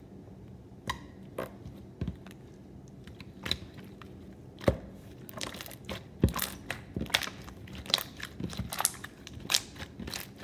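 Thick white jiggly slime being squeezed and kneaded by hand, giving wet clicks and small air-bubble pops, scattered at first and coming more often in the second half.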